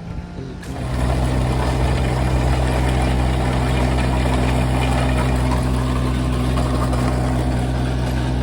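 An engine comes up to a louder, steady run a little under a second in, then holds an even drone.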